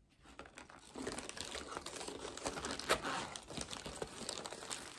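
Crinkling and rustling of paper and plastic packaging being handled, beginning about a second in, with many small clicks and one sharper one near the middle.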